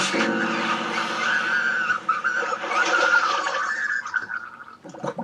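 A cartoon character's drawn-out gurgling, strangled cry as it dies, one wavering voice held for about four seconds before breaking off near the end.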